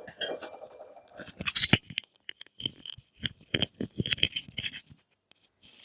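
Kitchen items being handled while an air fryer is readied for cooking: a run of short clinks, knocks and scrapes, loudest about a second and a half in.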